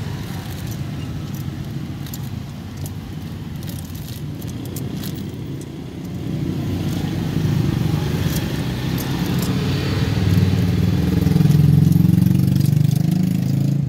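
A motor vehicle engine running close by on the street, growing louder from about six seconds in and loudest near the end. Light clicks and rustles from metal tongs and a plastic bag sit underneath.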